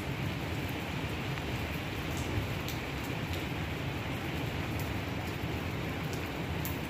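Steady rain: an even hiss with a few sharper drop ticks now and then.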